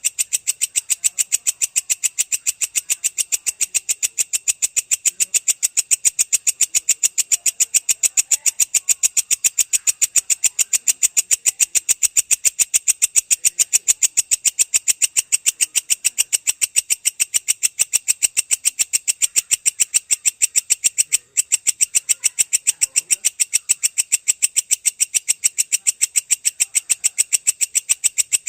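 Belalang kecek bush cricket (katydid) calling in a long, fast, even train of sharp high-pitched chirps, several a second, with one brief break about two-thirds of the way through.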